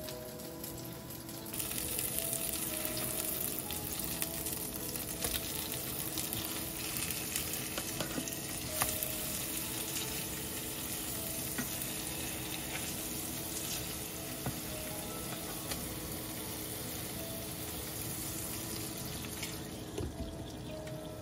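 Tofu-and-pork hamburger patties sizzling in oil in a frying pan, a steady loud hiss with occasional clicks of the turner against the pan. The sizzle drops sharply near the end as a glass lid goes on to steam them.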